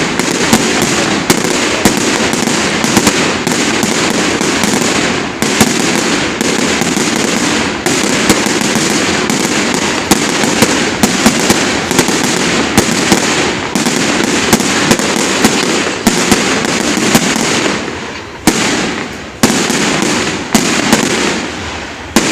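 Fireworks going off in a dense, continuous barrage of crackling and sharp bangs, thinning briefly twice near the end.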